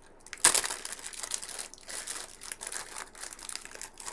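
Clear plastic bag crinkling as it is handled to take out a wax tart, starting with a loud crackle about half a second in and continuing in uneven crackles.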